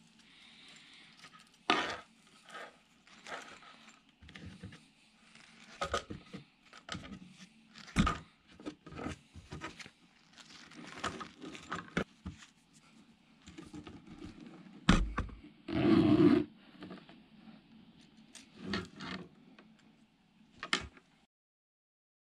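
Irregular handling noises: taps, clicks and rustling as slices of pork luncheon meat are laid into a blue mesh drying net, with a longer scraping rustle at about 16 seconds. The sound cuts to silence about a second before the end.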